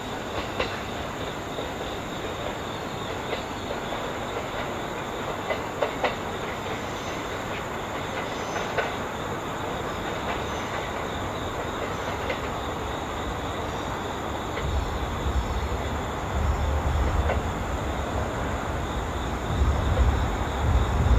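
Train moving on the rails, with scattered sharp clicks of the wheels over the track and a deep rumble that builds up in the last third.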